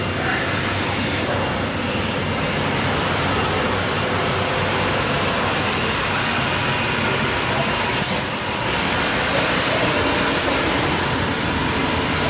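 C.R. Onsrud CNC router running: a steady machine noise with a faint steady whine, and two short hisses about eight and ten seconds in.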